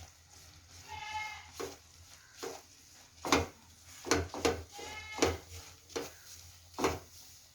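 A spoon scraping and knocking against a pan in short strokes as a thick mixture of ground roasted coconut, flattened rice and sugar syrup is stirred. Two short high-pitched calls sound in the background, about a second in and again about five seconds in.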